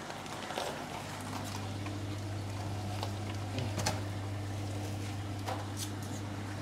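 Scissors cutting open a plastic fish bag, followed by scattered clicks and knocks of handling in a styrofoam box, over a steady low hum that starts about a second in.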